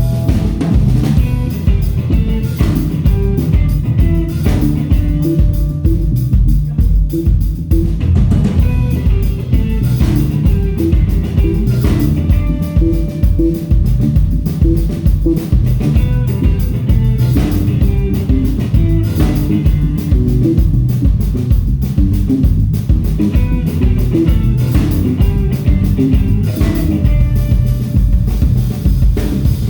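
Instrumental music: guitar playing over a drum kit keeping a steady beat.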